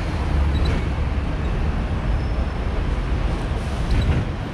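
Hong Kong electric double-decker tram running along its street track, heard from aboard: a steady low rumble of the wheels on the rails with street traffic around it.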